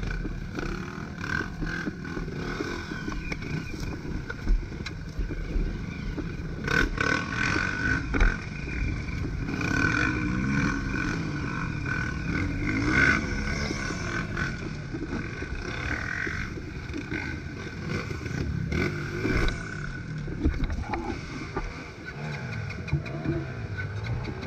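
Off-road motorcycle engine revving up and down repeatedly on a dirt trail, with a few sharp knocks along the way.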